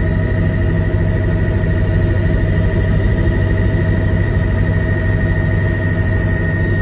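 Helicopter in flight heard from inside the cabin: a steady engine and rotor drone with a high whine running over it.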